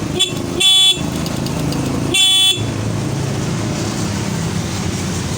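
Stock single electric horn of a Yamaha Mio Sporty scooter sounding in short toots: a brief blip, then two short beeps about a second and a half apart, over a steady low hum. The horn now works through a new handlebar switch set, the old switch having been the fault.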